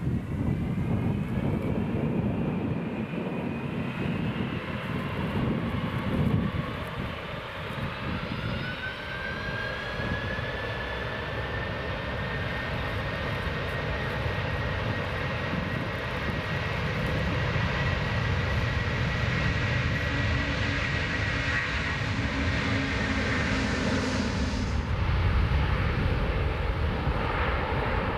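An Airbus A330-300's two Pratt & Whitney turbofans at takeoff thrust on the runway roll. A whine rises in pitch over the first ten seconds or so and then holds steady over a deep rumble. The high hiss drops off suddenly about 25 seconds in as the jet heads away.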